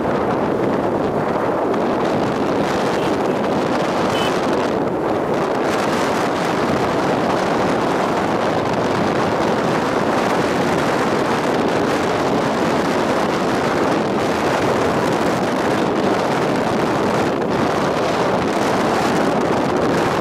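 Steady wind rush over the microphone of a camera riding on a moving Suzuki Raider R150 motorcycle, with the bike's engine and road noise underneath.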